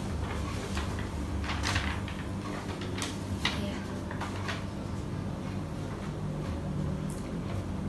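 Quiet room tone: a low steady hum with a few short soft clicks and rustles, around two, three and four seconds in.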